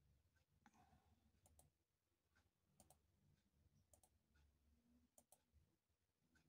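Faint computer mouse clicks, each a quick press-and-release pair, about once a second, as photos are clicked through, over near-silent room tone.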